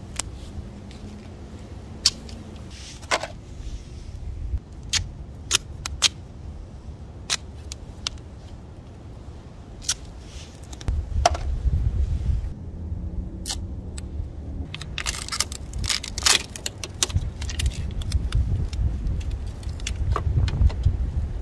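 Duct tape being handled and applied over a headlight: sharp clicks, crackles and rustles of tape coming off the roll and being pressed down, busiest about two-thirds of the way through. A low rumble swells and fades twice underneath.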